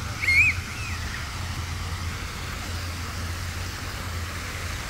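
Fountain water splashing steadily, over a low steady rumble. A short, loud, high-pitched wavering squeal rings out about half a second in.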